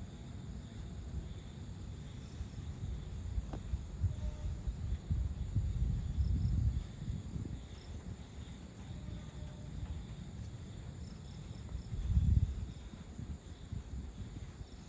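Evening insect chorus, probably crickets, giving a steady high chirring. Under it a low rumble swells about six seconds in and again about twelve seconds in.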